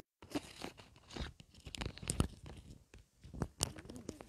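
Irregular crackling and clicking: a scattered run of small sharp crackles with faint rustling between them.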